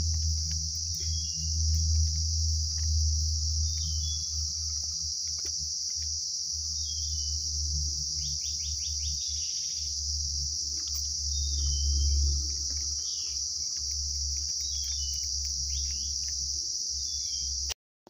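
Tropical forest ambience: a steady high insect drone, with short descending bird chirps every second or two and a brief rapid chatter about halfway through, over a low rumble.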